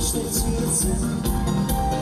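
A live band playing through a stage PA: a drum kit keeping a steady beat under electric guitars and a bass guitar.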